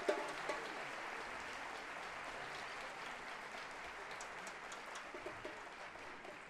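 Audience applause dying away, with scattered single claps near the end.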